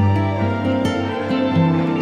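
Background music: soft instrumental music with plucked-string notes over a sustained low bass note.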